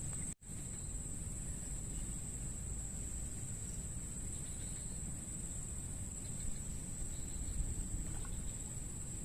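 Steady, continuous high-pitched drone of insects, like crickets, over low rumbling wind or handling noise. The sound cuts out completely for a moment just under half a second in.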